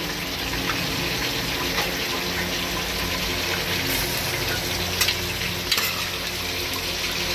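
Wet raw chicken pieces sizzling as they are lowered into hot oil in an aluminium pot, a steady frying hiss from the water on the meat, with a few sharp clinks of the ladle against the pot.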